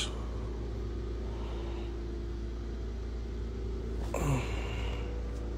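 Steady low background hum, with one short falling vocal sound, like a sigh, about four seconds in.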